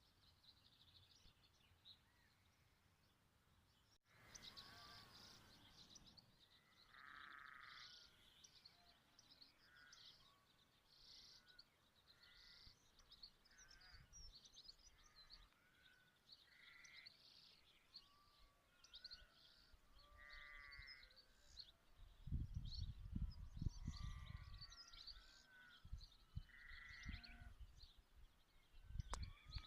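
Faint outdoor birdsong: many short chirps and warbling calls from several birds. A low rumble comes in for a couple of seconds about three-quarters of the way through.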